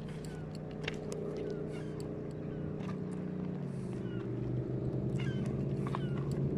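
Jet boat engine droning as it comes down the river, growing steadily louder, with a slight drop in pitch about halfway. A few short, high, falling chirps sound over it.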